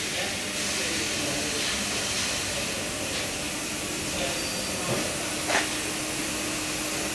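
Steady hissing noise, with a few faint clicks and one sharper click about five and a half seconds in; a faint steady hum joins about five seconds in.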